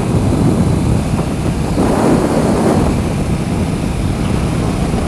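Motorcycle engine running at road speed, with a steady rush of wind over the microphone.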